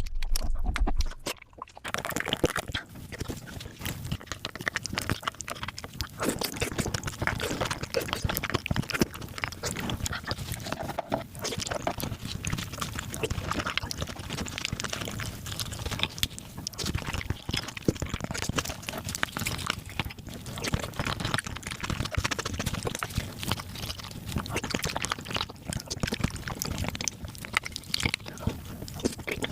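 Mukbang eating sounds of spicy beef marrow, sped up five times: a dense, continuous stream of quick, wet chewing and mouth clicks.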